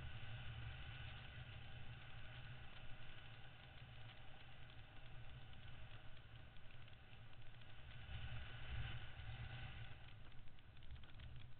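Motorcycle engine running at low revs while rolling down a rough dirt track, under a fluctuating low rumble and scattered small rattles.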